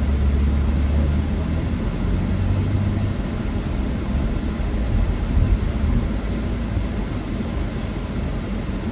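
Car air-conditioning fan blowing at full speed on max cold, a steady rushing noise heard inside the cabin over the low rumble of the moving car.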